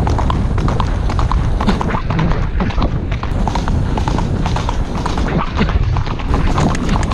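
Horse's hooves striking a dirt track in quick, irregular beats, heard from the saddle, over a steady rumble of wind on the microphone.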